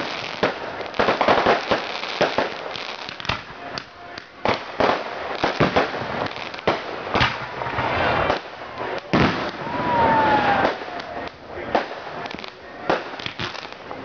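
Aerial fireworks going off in quick succession: many sharp bangs and crackling from launches and bursts overlapping, with a short lull about four seconds in.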